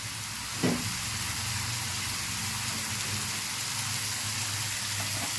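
Mushroom and potato masala frying in a pan: a steady sizzling hiss over a low hum.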